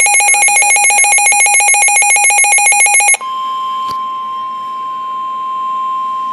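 A NOAA weather radio receiver's alert alarm beeping in a rapid pulsing pattern, cut off abruptly about three seconds in. It is followed by a single steady tone near 1 kHz, the broadcast's 1050 Hz warning alarm tone that heralds a severe thunderstorm warning.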